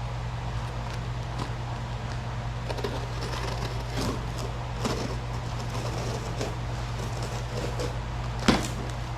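Light scattered clicks and knocks of parts being handled while a home power rack is assembled, with one sharper knock about eight and a half seconds in, over a steady low hum.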